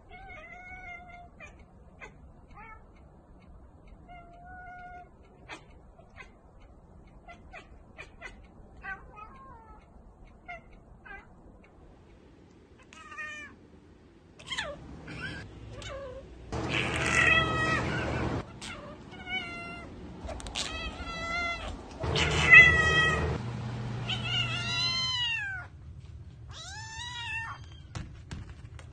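Cats meowing: short, faint meows at first, then louder, longer meows that rise and fall in pitch in the second half.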